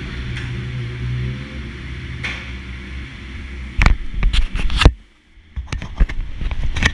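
BMW S1000RR inline-four engine running, picked up by an onboard action camera. In the second half there is a flurry of sharp cracks and pops, and the sound drops away almost completely for about half a second.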